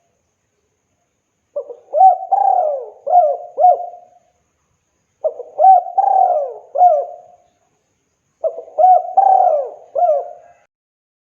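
Spotted dove (tekukur) cooing: three phrases of several quick, rising-and-falling coo notes each, a couple of seconds apart, with short silences between them.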